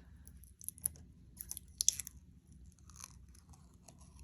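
Scattered crackles and small clicks of plastic being handled, as someone picks at the protective film on a PC part that will not peel off. The loudest crackles come near the middle.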